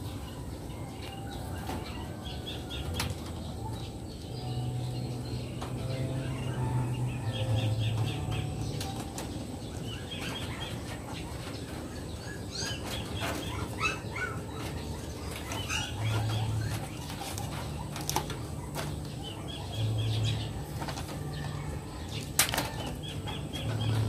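A small caged bird fluttering and beating its wings against the wire mesh, with quick runs of short high chirps and sharp rattles of the wire, as a cat paws at the top of the cage. A low hum comes and goes underneath.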